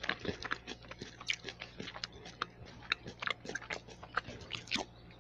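Chewing fresh coconut meat close to the microphone: irregular crunches and mouth clicks, several a second.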